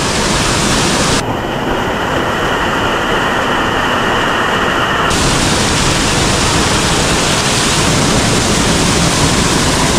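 Steady rush of a mountain stream's falling water, close to the microphone. Between about one and five seconds in it turns duller, its higher part dropping away, then comes back full.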